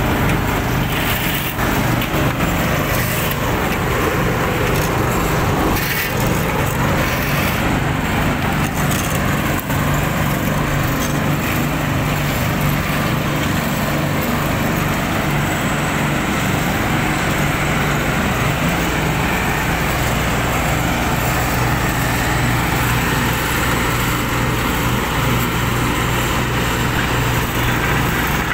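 Volvo asphalt paver's diesel engine running steadily under work, a constant low drone.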